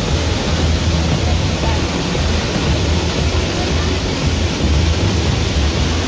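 Two waterfalls pouring into a rock pool: a loud, steady rush of falling water. Background music with a stepping bass line sits under it.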